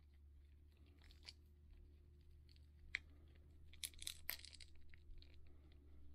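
Faint clicks and crackles of a Minelab CTX 3030's old LCD panel being worked out of its plastic display frame by hand, with single ticks and a short burst of crackling about four seconds in, over a low steady hum.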